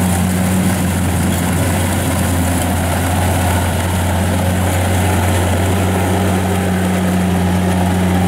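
Kubota DC-70 Plus combine harvester's diesel engine and threshing machinery running steadily at close range as it cuts lodged rice, a constant low hum over a rushing mechanical noise.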